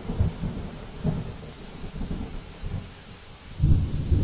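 Hurricane wind gusting against the microphone, a low rumbling buffet that swells and fades, with a strong gust near the end, over the hiss of rain.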